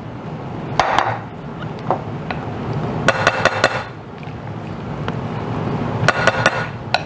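Silicone spatula scraping and knocking against a glass bowl as thick batter is scraped out of it: three short clusters of taps, each with a glassy ring.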